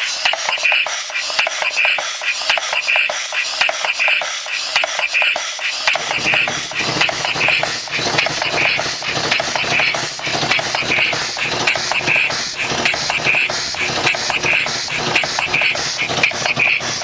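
Homemade compressed-air engine, a lawnmower engine converted to run on air, running slowly. It makes hissing puffs of exhausting air about twice a second over a quick patter of clicks.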